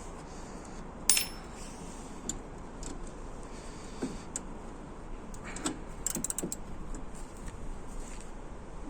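Hand tools on metal: a 13 mm socket being fitted onto a bolt, with one sharp ringing clink about a second in and scattered metallic clicks and rattles after, a quick cluster of them near the middle.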